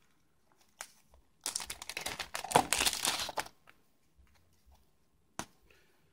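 Thin clear plastic card bag crinkling as it is opened and a stack of game cards slid out, for about two seconds from a second and a half in. A single short click follows near the end.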